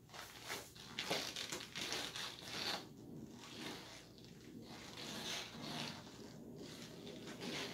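Irregular rustling and shuffling from a person moving about, loudest in the first few seconds and quieter after.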